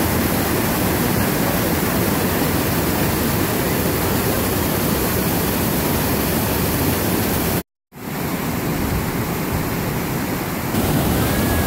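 Loud, steady rush of water cascading over mossy travertine steps of a small waterfall. It cuts out for an instant about eight seconds in and resumes slightly quieter.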